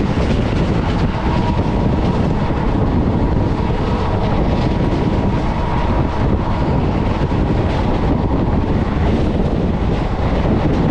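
Netaji Express (Kalka Mail) passenger train running along the track, heard from on board: a steady loud rumble of wheels and carriages, with wind buffeting the microphone.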